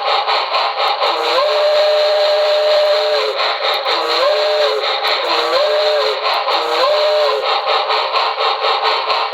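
Simulated small steam locomotive whistle from a QSI Maxx Traxx model-train sound unit, played through a speaker: one long chime-whistle blast, then three short ones, over a steady, rhythmic chuffing hiss of the running-steam sound.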